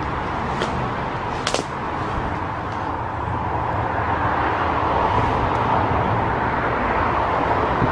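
Footsteps pushing through woodland undergrowth, leaves and brush rustling, with sharp snaps of twigs about half a second and a second and a half in, the second the louder, over a steady low rumble.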